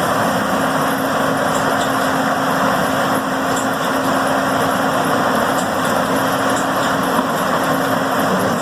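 A heavy machine's engine running steadily, a dense mechanical noise over a constant low hum.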